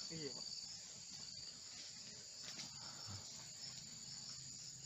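Insect chorus in an oil palm plantation: a steady, high-pitched shrilling that carries on without a break.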